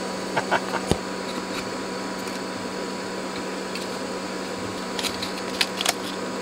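Light clicks and one sharp knock from an electronics circuit board being handled and fitted into its metal chassis, with a few more small clicks near the end, over a steady background hum and hiss.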